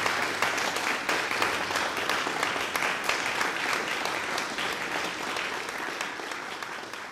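Audience applauding, a dense patter of many hands clapping that slowly dies away toward the end.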